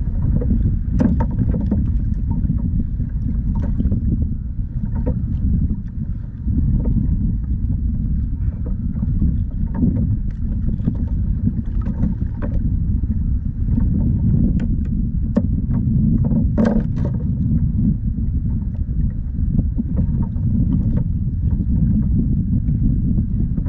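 Wind buffeting the microphone as a steady low rumble, with scattered light clicks and knocks throughout, a cluster of them about 17 seconds in.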